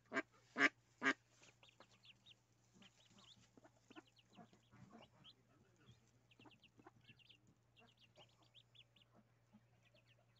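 Mallard ducklings peeping: many short, high chirps in quick clusters as they huddle against their hen. Three loud short sounds come in the first second or so.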